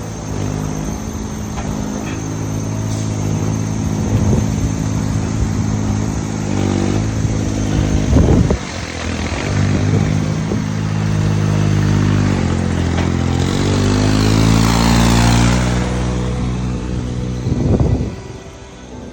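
Delivery truck's engine running, its pitch rising and falling as it revs, with two loud thumps, one about eight seconds in and one near the end.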